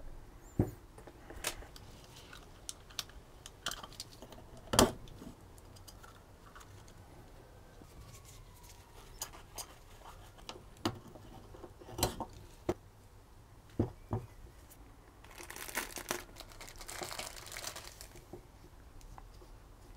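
Small handling noises from an oil filter housing cap being serviced by hand: scattered light clicks and knocks of plastic parts on a cloth-covered bench as the O-rings are changed. Near the end comes a few seconds of plastic crinkling from the packet of new O-rings.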